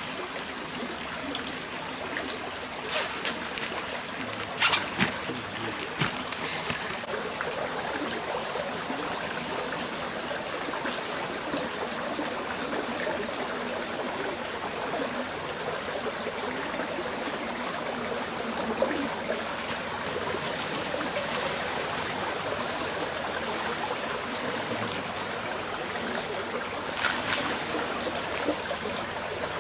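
Stream water flowing and trickling steadily, with a few sharp clicks or knocks a few seconds in and again near the end.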